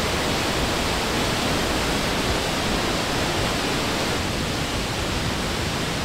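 Large waterfall in full spate, the water absolutely raging as it falls into a rocky gorge: a loud, steady rush with no let-up.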